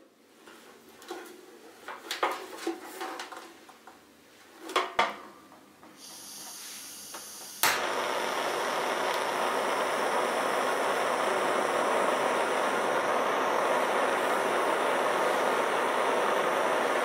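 A portable cartridge gas heater being handled with a few knocks and clicks, then gas hissing as the valve is opened. About two and a half seconds later a sharp click of the igniter lights it, and the burner runs with a loud, steady rushing hiss.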